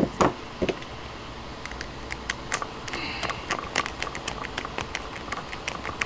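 Light, irregular clicks and ticks of hands and a screwdriver working on a 3-way light switch: the red traveler wire is being looped onto a terminal and the terminal screw tightened.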